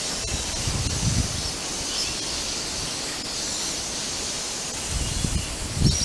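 Outdoor natural ambience: a steady high hiss with a couple of faint short bird chirps, and low rumbles on the microphone about a second in and again near the end.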